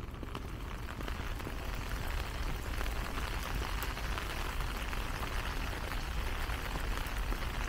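Steady rain falling, with scattered faint raindrop ticks over an even hiss and a low rumble underneath.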